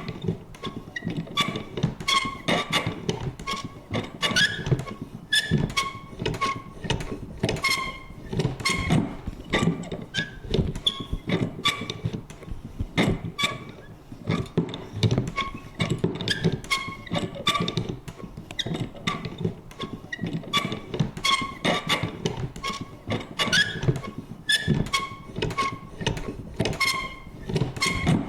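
Vintage paper punch being worked over and over: irregular clicks and thunks several times a second, mixed with short creaking squeaks.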